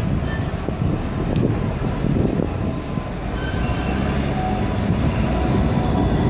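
A Croydon Tramlink Bombardier CR4000 tram rolls slowly into the stop and passes close by: a steady low rumble of wheels on street rails, with faint thin whining tones above it.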